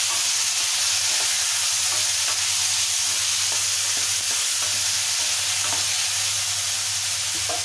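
Freshly added chopped tomatoes sizzling in hot oil in a kadhai and being stirred with a wooden spatula: a steady frying hiss.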